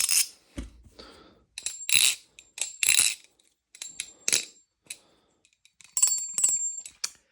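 Butterfly knife (balisong) clone being flipped: an irregular run of sharp metal clacks and clinks as the handles swing and strike, several with a short high ring. Its screws are not fully tightened.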